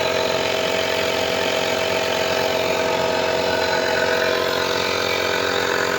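Toyota Revo pickup's engine running steadily at idle, now running after a no-crank, no-start fault.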